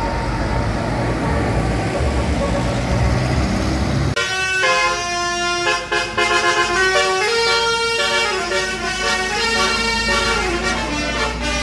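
Indonesian bus's telolet musical horn playing a tune of stepped multi-tone notes, starting about four seconds in. Before it, the deep engine and road noise of the bus passing.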